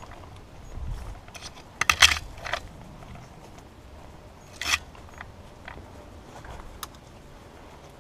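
Footsteps and rattling gear of a player moving through woodland brush, with a brief cluster of sharp clatters about two seconds in and a single sharp clack near the middle.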